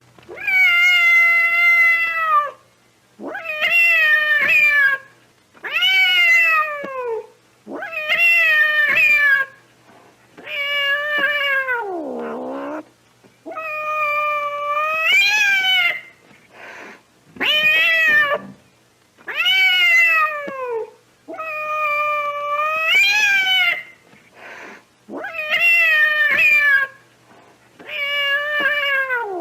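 A domestic cat yowling (caterwauling) over and over, about eleven long drawn-out calls in a row, each lasting around two seconds with short gaps between. Most calls hold their pitch and then slide downward, and one near the middle drops into a deep, low moan.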